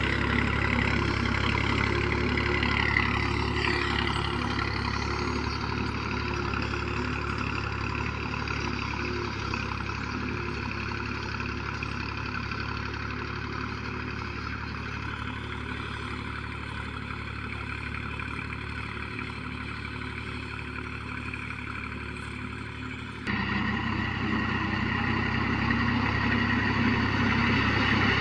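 Tractor diesel engine running steadily while pulling a land-levelling blade across a sandy field, slowly getting quieter as it moves away. Later on the engine sound jumps abruptly louder and stays close.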